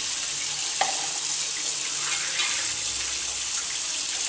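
Steady rush of running water, as from a tap, with a light clink about a second in.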